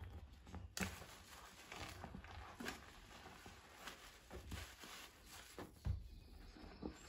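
Soap-laden sponges being squeezed and lifted in a basin of thick suds: wet squelching and squishing of foam, with soapy water pouring and dripping back into the basin. Irregular soft squelches, sharpest about a second in and again near six seconds.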